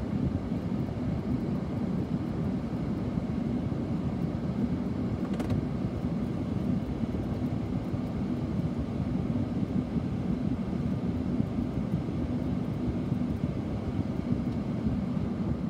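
Steady low rumble of road and engine noise heard from inside a moving vehicle's cabin.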